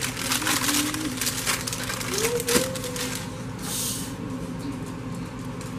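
Plastic pie-crust wrappers crinkling as they are handled: a fast run of crackles that dies away about three seconds in.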